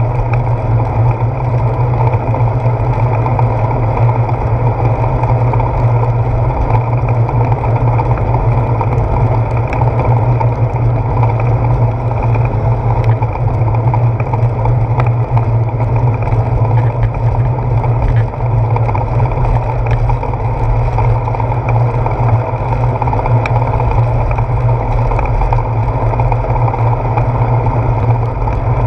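Steady wind and road rumble picked up by a handlebar-mounted GoPro Hero 4 on a bicycle riding along a wet road: a loud, even low rumble with no breaks.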